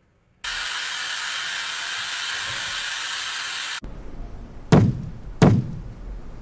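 A steady hiss for about three seconds that cuts off abruptly, then two loud thuds less than a second apart.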